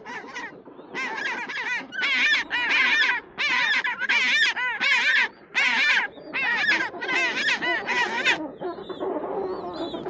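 A flock of birds calling over and over, many overlapping calls in bursts of about half a second to a second with short gaps between them.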